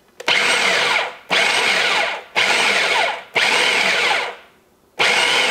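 Electric food processor pulsed about five times, each burst of the motor and blade whirring about a second with short breaks between. It is cutting cold butter and water into flour for an all-butter pie crust dough.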